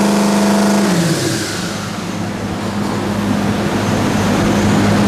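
Twin-turbocharged 6.2-litre LS V8 running on an engine dyno at high revs. About a second in its pitch drops, and it runs on steadily with a strong hiss over the engine note.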